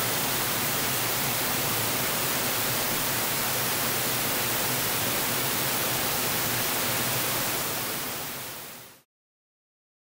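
Steady rush of water pouring down a partly frozen waterfall, fading out near the end into silence.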